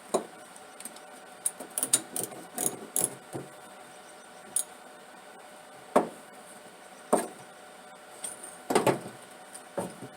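Scattered clicks, clinks and knocks of hand tools and metal parts being handled while working on spark plugs. A quick run of clicks comes about two seconds in, single knocks follow, and another group comes near the end.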